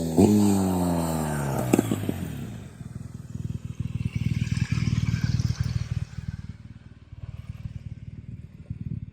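BMW R1200GS liquid-cooled boxer twin running through an Akrapovic slip-on silencer: the engine note falls as the bike slows, with a quick throttle blip near the start, then drops to a low, uneven rumble that swells and fades.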